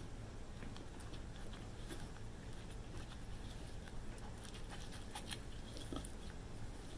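Silicone spatula stirring a thick powdered-sugar glaze in a glass measuring cup: faint, irregular scraping and light clicks against the glass.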